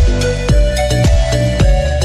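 Background music with a steady beat of deep drum hits under held notes.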